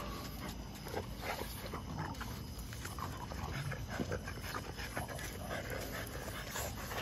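A pack of French bulldogs and bully dogs panting and snuffling close by, a busy run of short, irregular breathy sounds.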